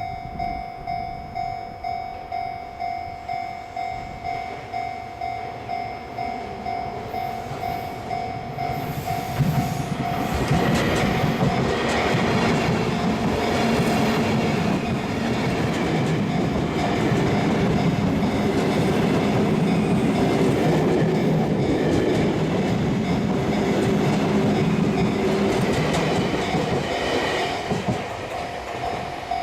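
Japanese level crossing warning bell ringing steadily, about one and a half strikes a second. About ten seconds in, a Sotetsu electric commuter train passes over the crossing for some seventeen seconds, its wheels clattering on the rails and drowning the bell, which is heard again near the end.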